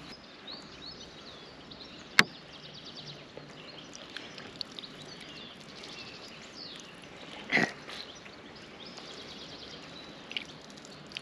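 Wild birds chirping and singing over a steady outdoor hiss, with a sharp click about two seconds in and a brief louder sound a little past halfway.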